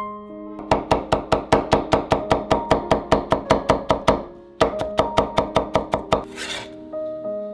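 Cleaver chopping slices of carrot into matchsticks on a wooden cutting board: rapid, even knocks of about six a second in two runs, with a short break about four seconds in.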